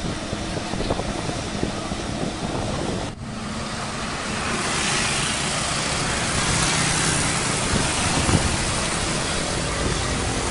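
Komatsu PC200-8 crawler excavator travelling along an asphalt road, its diesel engine running under a steady hiss of track and road noise. The sound breaks off for a moment about three seconds in, then carries on louder and hissier.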